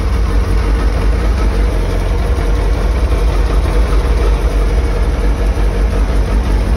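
Suzuki Hayabusa's 1340 cc inline-four engine idling steadily, just after a cold start following five and a half years of storage on the same old petrol.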